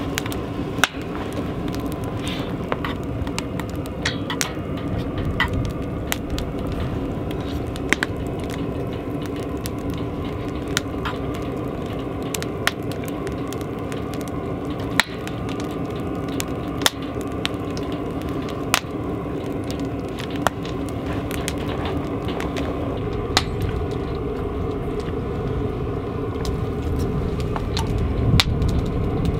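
Campfire crackling, with a sharp pop every couple of seconds over a steady low rush.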